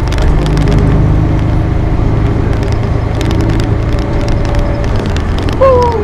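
Bus engine and road noise heard from inside the cabin of a moving bus: a steady low drone, with a faint whine in the middle.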